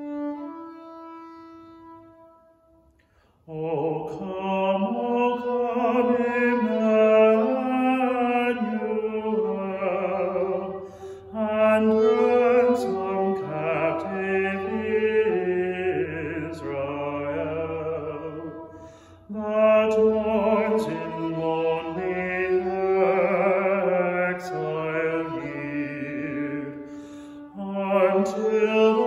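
A man sings a hymn in slow phrases with a violin accompanying him. It opens with a held violin note dying away, and the singing comes in about three and a half seconds in.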